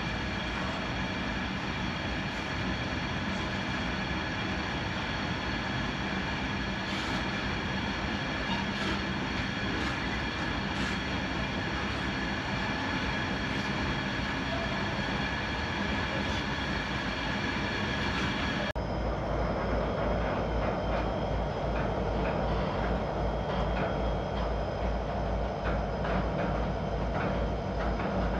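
Diesel freight train passing, its locomotive engines and cooling fans running with steady tones over a rumble. About two-thirds of the way through the sound cuts abruptly to a deeper rumble with rapid wheel clatter as the ore wagons roll by.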